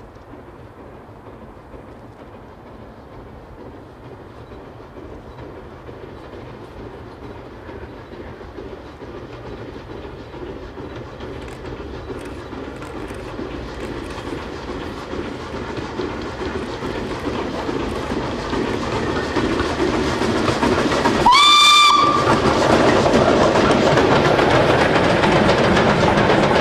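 LNER K4 three-cylinder 2-6-0 steam locomotive No 61994 working a goods train, its steam exhaust growing steadily louder as it approaches. Near the end it gives one short whistle blast, rising as it starts and then holding. The locomotive and its wagons then pass close by, loud and clattering.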